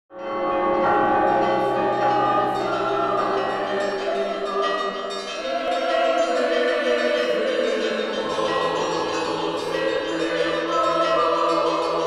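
Intro music: sustained chords with bell-like chimes, the harmony shifting about five seconds in and again about eight seconds in.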